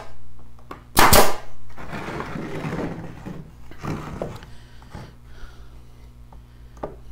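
A staple gun fires once about a second in, driving a fastener into the wooden frame of a hive bottom board. This is followed by about a second and a half of the wooden frame scraping as it is shifted on the workbench, and a few light knocks.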